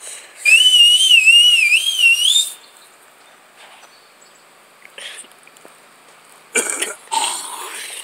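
A man whistling a warbling call for about two seconds, its pitch wavering up and down and rising at the end. Short breathy, rustling bursts follow near the end.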